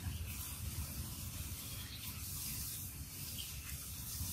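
Steady outdoor background noise: a low rumble with a high hiss over it, and no distinct event standing out.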